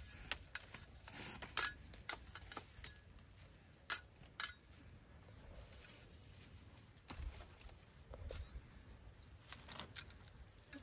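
A series of sharp clicks and snaps as a cleaver cuts and trims grass stems, bunched in the first half with a few fainter ones later. A faint high chirp repeats about once a second throughout.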